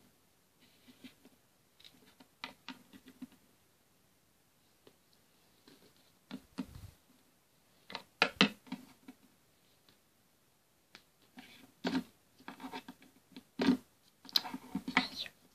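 Small plastic toy figurines and a cardboard box being handled on a wooden tabletop: scattered taps, clicks and scrapes, coming in clusters, with the loudest knocks about eight seconds in and again between twelve and fifteen seconds in.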